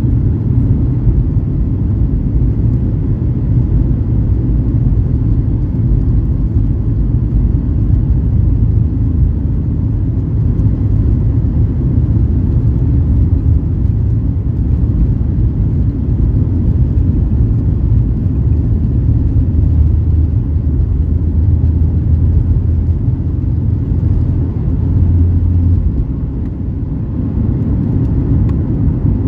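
Cabin noise of a Boeing 737 MAX 8-200's CFM LEAP-1B engines at takeoff thrust, with the steady low rumble of the takeoff roll. The rumble eases slightly near the end as the wheels leave the runway.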